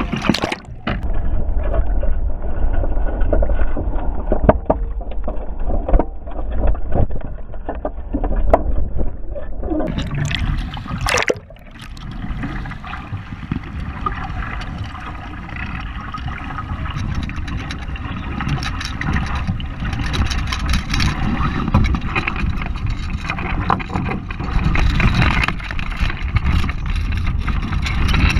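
Wind buffeting the microphone, with water splashing and sloshing around a capsized Hobie Cat 16 catamaran. Muffled for roughly the first ten seconds, then fuller and brighter.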